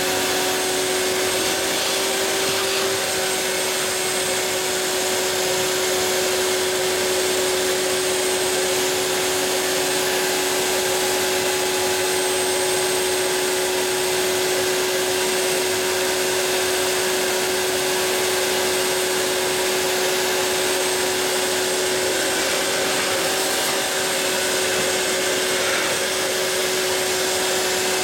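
Router spindle on a Mostly Printed CNC machine running steadily as its small bit cuts a curved profile into a wooden sheet: an even whine over a steady hiss.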